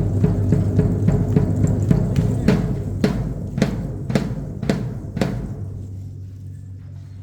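Danza drumming: quick steady beats, then about six heavy, evenly spaced strokes that bring the drumming to a stop a little past five seconds in, ending the piece.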